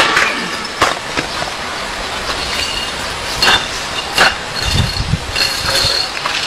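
Bare hand striking red clay bricks on a concrete slab: a series of sharp cracks and knocks, about five and unevenly spaced, as bricks are chopped and set back down on the slab, over a steady background noise.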